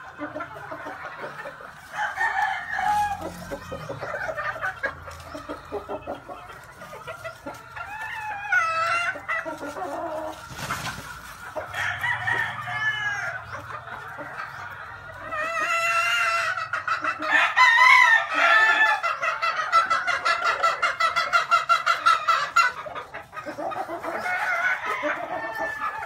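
Chickens clucking and calling, with a rooster crowing; the calls come in repeated bouts and overlap, growing loudest and most continuous about two-thirds of the way through.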